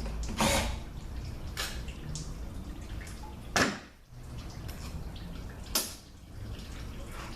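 Four sharp knocks and clinks with a few fainter ticks between them, from metal parts and tools being handled while a Mercedes 722.6 automatic transmission is taken apart on the bench. A low steady hum runs underneath.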